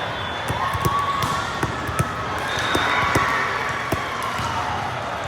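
Volleyballs being struck and bouncing on a gym floor: a string of sharp smacks at irregular intervals, over a background murmur of voices.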